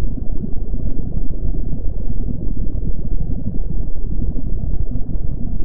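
Loud, steady low rumbling noise with faint scattered crackles, presented as the sound of the red supergiant star UY Scuti: a sonified or synthesized 'star sound' drone.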